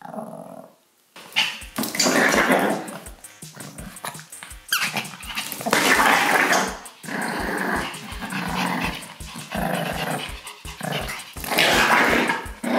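Small dogs growling and snarling at each other in several bursts as they scuffle over a toy, a squabble over who is in charge.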